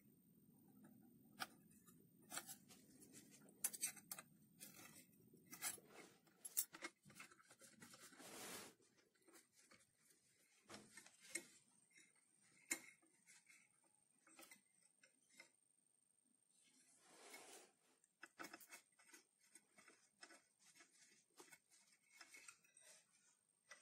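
Faint, irregular clicks and ticks of a hex key working the socket-head screws that hold a digital readout scale's steel mounting bracket. Two brief scraping rustles come about a third and two thirds of the way through.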